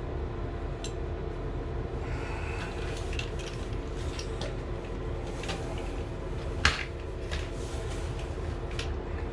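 Small parts handled and rummaged, with light scattered clicks and rattles and one sharper click about two-thirds of the way in, over a steady low mechanical hum.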